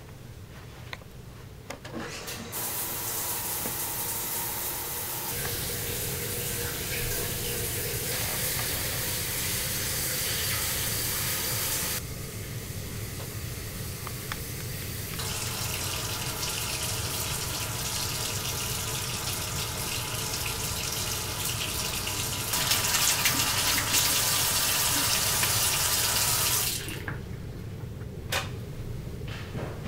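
Bathroom sink tap running, with water splashing into the basin. The flow shifts in sound a couple of times, runs louder for a few seconds, and then cuts off suddenly near the end.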